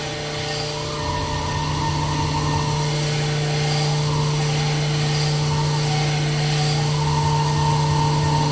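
Sunnen SV-10 honing machine running a diamond hone in an engine block cylinder. It gives a steady motor hum with a higher tone that swells and fades every couple of seconds as the hone strokes. The machine is held at a slower speed because its new diamonds are not yet broken in.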